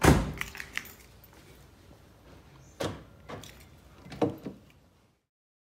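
A car door slamming shut with a heavy thud, followed by a couple of light clicks. About three and four seconds later come two more knocks.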